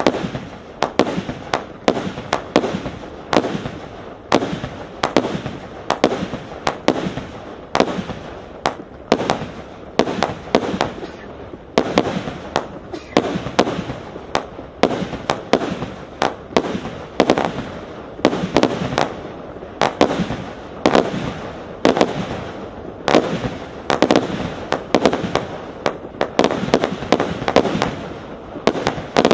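A 224-shot compound firework cake firing continuously, shot after shot launching and bursting as a steady run of sharp bangs, a few each second.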